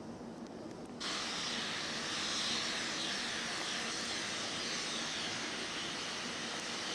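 Steam locomotive venting steam: a loud, steady hiss that starts abruptly about a second in.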